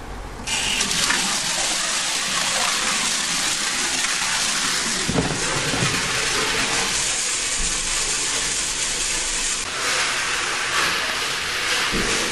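Small parts-cleaning tumbler, loaded with valve springs, spring seats and retainers, starting up about half a second in and running with a steady, loud rushing hiss like gushing water.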